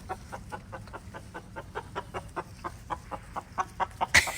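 Chickens clucking in a quick, even run of short clucks, about five a second. Near the end there is one loud, sharp sound.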